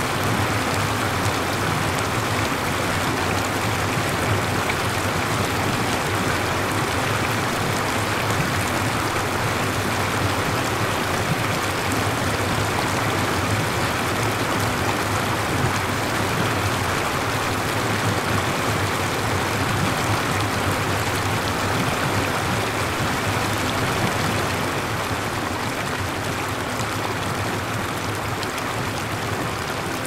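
Flowing water: a steady, even rushing of a stream, easing slightly near the end.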